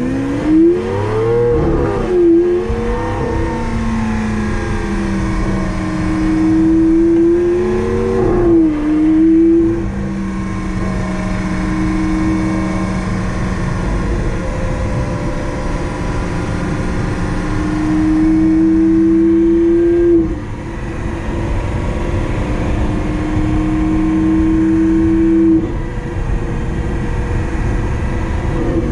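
Lamborghini Aventador SV's V12 through a catless Fi Exhaust full system, heard from inside the cabin while driving. The revs rise and fall quickly in the first few seconds and again about eight seconds in, then the engine pulls steadily through the gears, with two upshifts in the second half where the pitch drops sharply.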